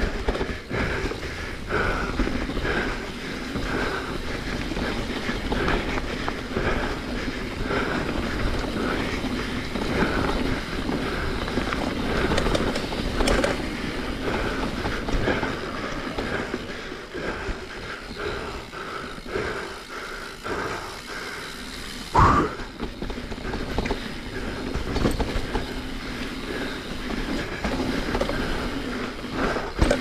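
Mountain bike running down a forest trail: tyres rolling over dirt and rocks, with a constant clattering of chain and bike parts over the bumps. A single sharp clack about 22 seconds in is the loudest moment.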